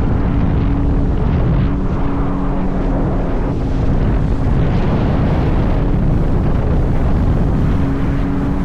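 Jet ski engine running at speed, with wind buffeting the microphone and water rushing past. A steady engine tone fades in the middle and comes back near the end.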